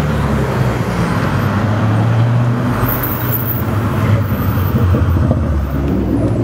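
Several sports cars driving past one after another, their engines giving a steady deep drone over tyre noise.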